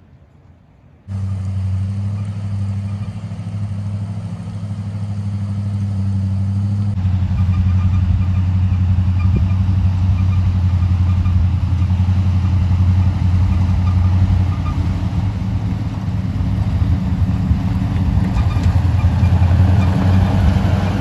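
Engine of a ZIL-131 six-wheeled truck running steadily as it drives up a dirt track, growing louder as it comes close. It starts suddenly about a second in, after a quiet opening.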